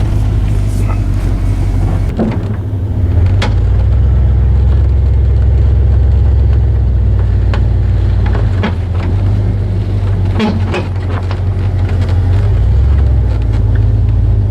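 Motor vehicle running, heard from inside: a loud, steady low engine and road drone with scattered clicks and knocks.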